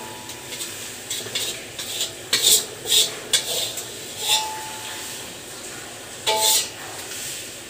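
Metal spatula scraping and clanking against a metal wok while stirring fried rice, in irregular strokes, loudest a little over two to three seconds in; a couple of harder knocks set the wok ringing briefly.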